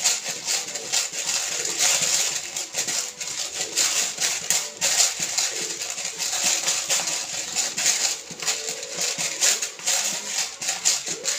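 A hand-twisted spice mill grinding continuously over a pan: a dense, gritty rasp made up of many fast small clicks.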